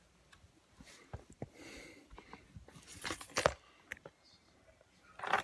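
Handling noise: scattered clicks, knocks and rustles, with a louder cluster of knocks about three seconds in.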